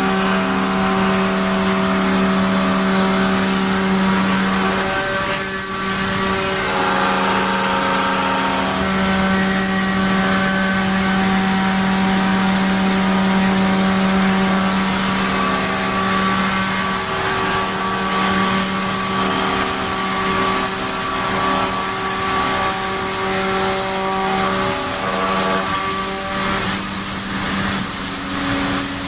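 CNC router spindle running with a steady whine while its router bit cuts wood, over a constant hiss; the higher tones shift every few seconds as the cut goes on.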